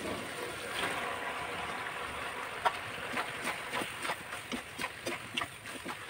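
Boiled macaroni sliding off a steel plate into a hot kadhai of masala over a faint sizzle, then a metal spoon stirring it, clicking and scraping against the pan two or three times a second.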